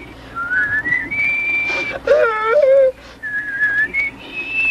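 A person whistling a slow tune, clear single notes stepping up and down in pitch. About two seconds in, a voice cuts in briefly with a wavering note.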